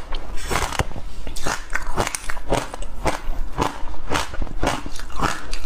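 Close-miked crunching of frozen ice coated in black sesame seeds being chewed in the mouth, in sharp crunches about twice a second.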